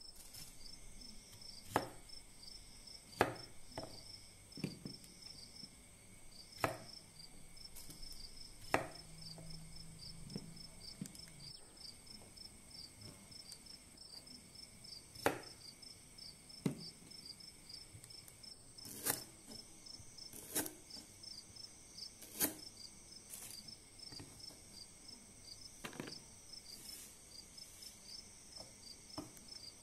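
Crickets chirping steadily in fast pulses, with about a dozen sharp knocks of a knife on a wooden chopping board spaced irregularly through it.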